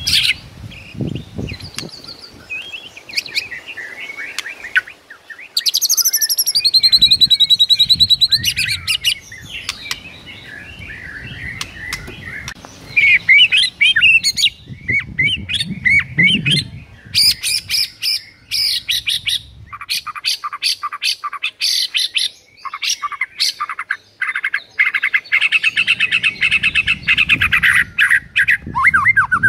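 White-rumped shama (murai batu) singing loudly in its fighting 'narung' mode, set off by a training recording: a varied run of whistled phrases and a long buzzy note, then fast chattering, rattling phrases in the second half.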